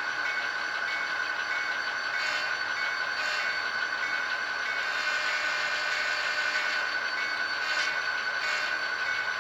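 HO scale model train running by: two GP50 diesel models pulling a string of three-bay wood chip hoppers. It makes a steady high whine with a faint tone pulsing about twice a second and a few light clicks from the wheels on the track.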